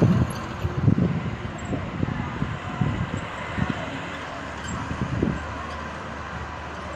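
A vehicle driving on an unpaved gravel road, its engine and tyre noise fading as it pulls away, with irregular low thumps and rumbles.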